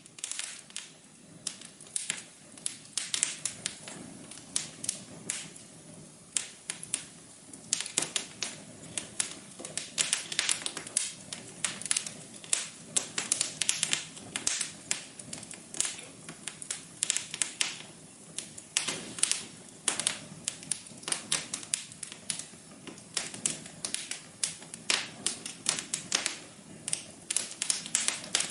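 Wood fire crackling: dense, irregular sharp pops and snaps over a faint steady hiss.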